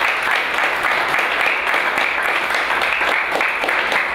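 A small group of people applauding, many hands clapping steadily.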